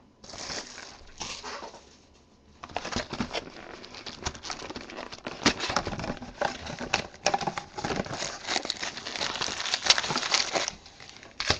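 Plastic shrink wrap crinkling and a cardboard trading-card box being handled and opened, a dense crackly rustle with many small clicks that stops near the end.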